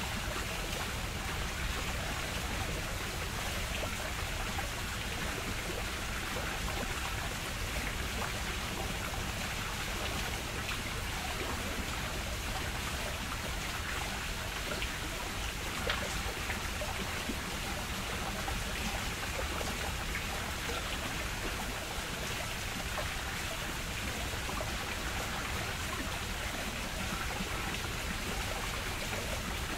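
Steady rush of flowing water, an even unbroken splashing hiss, with one brief tap about halfway through.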